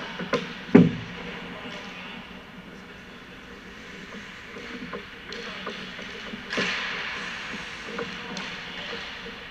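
Ice hockey sounds in an indoor rink: sticks clacking on pucks, with one sharp loud crack just under a second in, and skate blades scraping the ice in a hissing swell near the middle. Faint voices in the background.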